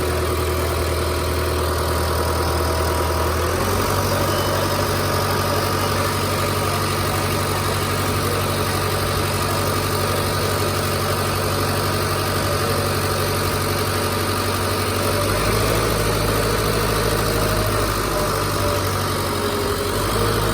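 Concrete mixer's engine running steadily, its note shifting to a different speed about three and a half seconds in and again about fifteen seconds in.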